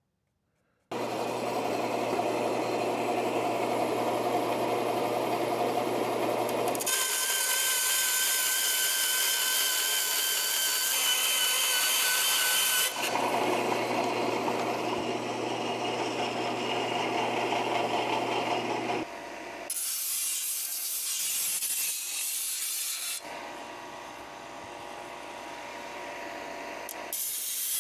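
Vertical band saw running and cutting thin aluminium sheet, in several stretches that start and stop abruptly, with a steady low motor hum under parts of it; near the end a quieter belt sander works the edge of the sheet.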